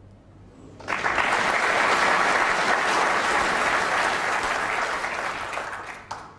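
Snooker audience applauding a well-laid snooker, the cue ball left tucked behind the yellow. The clapping breaks out suddenly about a second in, holds steady, and fades away just before the end.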